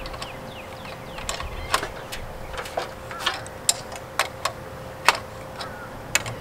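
Sharp metallic clicks and ticks at irregular intervals, about a dozen in all, from a hand wrench working the U-bolt nuts that clamp the antenna to the mast, over a faint steady hum.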